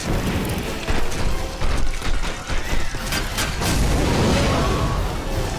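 Animated-film sound effects: mechanical clanking and several loud crashing impacts over the film's music score.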